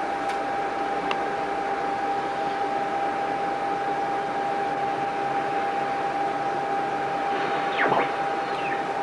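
Steady hiss with one continuous steady tone under it, a faint click about a second in and a brief falling swish near the end.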